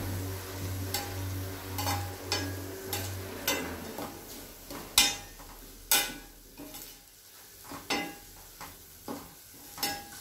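A metal spatula stirs and scrapes chilli pickle powder frying with ginger and garlic in coconut oil in a stainless steel pan. It strikes the pan with sharp clinks roughly once a second over a low sizzle.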